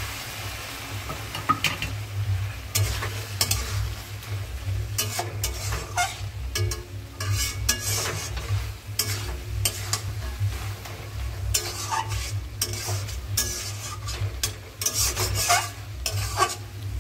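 Metal spatula stirring and scraping potatoes and green tomatoes around an aluminium kadai, with repeated irregular scrapes and taps against the pan, and the food sizzling. A steady low hum runs underneath.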